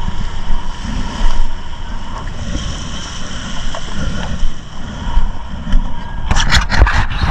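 Water sloshing and wind buffeting the microphone at the water's surface, a steady rumbling wash. Near the end comes a quick run of splashes.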